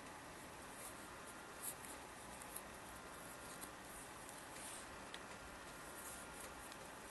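Faint rustling of yarn drawn over a crochet hook as double crochet stitches are worked, with a few soft scratchy brushes over a steady background hiss.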